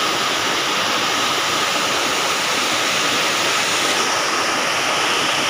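Waterfall cascading over rocks: a steady, loud rush of falling water.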